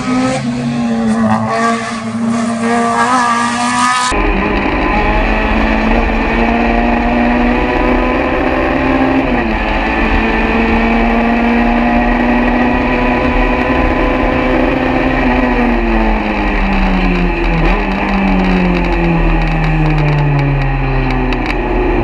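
VW Golf GTI hillclimb race car's engine: for about four seconds the car is heard from the roadside, then from inside the cabin, running hard at high revs with a brief dip about nine seconds in. Over the last six seconds the revs fall steadily.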